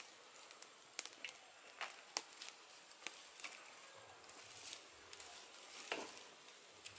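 Small campfire of dry twigs burning, with scattered sharp crackles and pops over a faint hiss.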